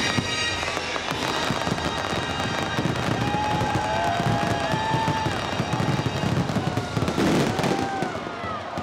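Aerial fireworks bursting and crackling in quick succession over show music, with crowd voices whooping and cheering through the middle.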